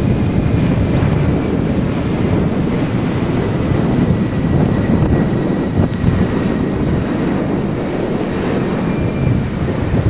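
Storm wind buffeting the microphone, mixed with the turbofan engine noise of an Embraer regional jet climbing away overhead. A faint high engine whine runs through the middle.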